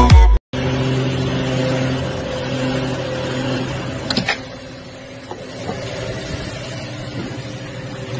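A steady low mechanical hum with a clear fixed pitch. About four seconds in there is a short click, after which a fainter hum continues. A burst of music cuts off at the very start.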